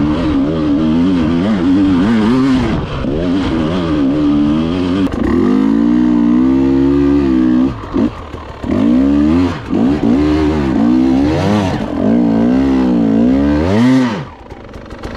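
Two-stroke enduro motorcycle engine being ridden hard off-road, the revs climbing and falling constantly with the throttle. The engine note drops away briefly about eight seconds in and again near the end.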